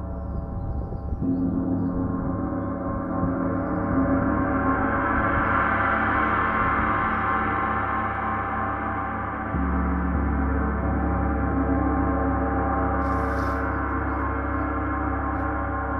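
Paiste 34-inch Symphonic gong played with soft felt mallets, a dense sustained wash of many overtones that builds from about a second in to a peak around the middle and then holds. Its low tones shift about ten seconds in as the mallet strokes change.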